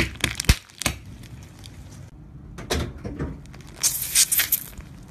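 A car tyre rolling over small plastic sachets, which burst with a few sharp pops and crackles in the first second. After a break, a tyre crushes a liquid-filled object: some crunching, then a loud spraying hiss for about a second as the liquid squirts out.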